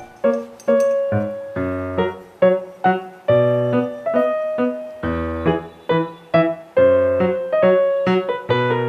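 Background piano music: a melody of struck notes, each fading away, with deeper bass notes underneath.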